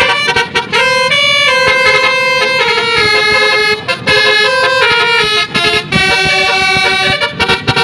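Indonesian bus 'telolet' horn with roof-mounted trumpets playing a loud tune: several horn tones sound together and jump to new notes every fraction of a second, with a few short breaks between phrases.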